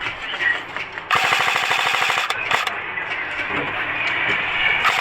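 Airsoft guns firing in sustained rapid full-auto strings, starting about a second in: a fast, continuous rattle of shots.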